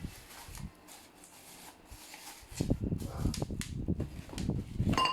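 Handling noise from unpacking: light knocks and rustling of packaging and parts, starting about halfway through after a quiet stretch.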